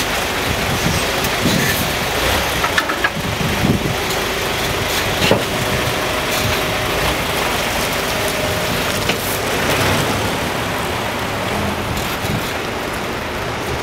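Isuzu diesel tractor unit's engine running steadily as the truck pulls forward out from under its trailer and drives away, heard as an even, noisy rumble.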